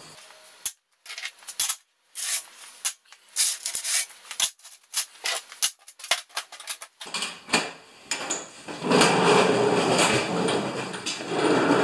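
Steel chains clinking in short, separate rattles as they are handled and put into a metal toolbox. From about seven seconds in this becomes a longer, louder continuous rattle and scrape of chain and metal box.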